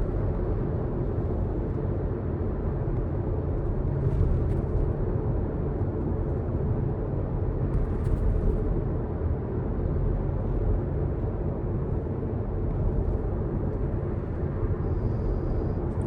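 Steady car cabin noise while driving: low engine and road rumble at an even level. Two faint short sounds rise above it about four and eight seconds in.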